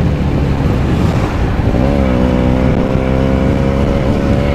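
Motorcycle engine running while riding, with a constant low wind rumble. Its note dips briefly about two seconds in, then holds steady.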